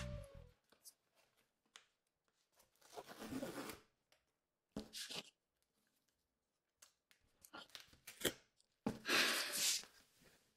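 Tape being torn off a large cardboard shipping box and the cardboard flaps being pulled open: a series of short tearing rasps, the longest and loudest about nine seconds in.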